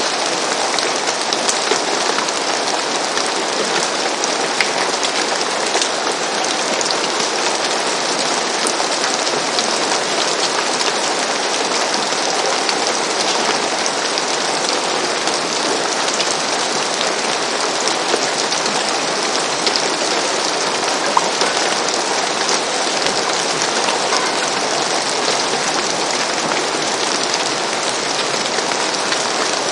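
Steady rain falling on a roof, an even hiss with scattered individual drop ticks.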